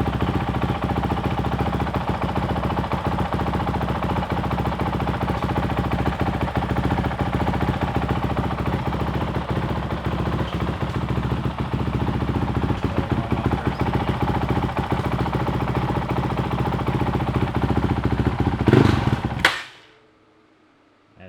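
Honda CRF450L single-cylinder four-stroke engine running through a new full Yoshimura RS4 exhaust on its first start, holding a steady idle. Near the end it gets briefly louder, then cuts off suddenly as the engine is shut down.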